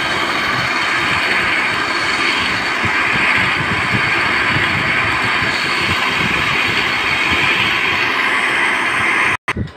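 Electric countertop blender running steadily at high speed, churning a thick liquid marinade. The motor cuts off abruptly near the end.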